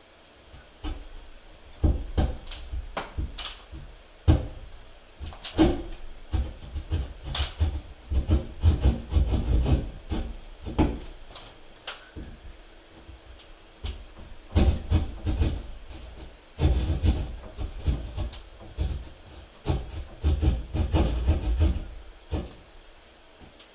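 A reciprocating-saw (Sawzall) blade held by hand and worked as a hand saw, cutting through the wall in spurts of quick back-and-forth strokes with short pauses between.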